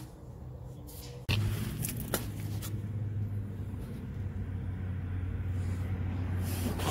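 A steady low mechanical hum, like a running vehicle engine, that comes in suddenly about a second in, with a couple of faint clicks over it.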